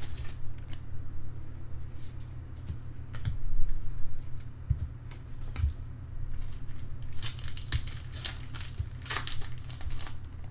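Trading cards and foil pack wrappers being handled: scattered crinkling, tearing and rustling, busiest near the end, over a steady low hum.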